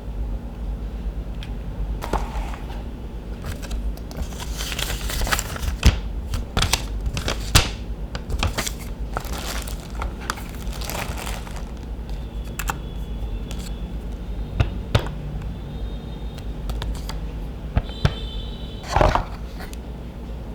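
Packaging being handled, crinkling and tearing, with several sharp knocks, over a steady low hum.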